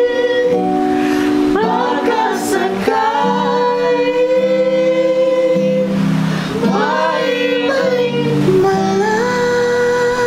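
A man singing slow, long held notes with a wavering pitch, other voices singing along, to a strummed acoustic guitar.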